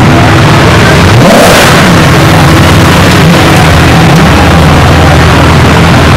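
Supercar engines running and revving as the cars drive past, very loud. The pitch rises sharply about a second in and falls again, with several more rev blips rising and falling after that.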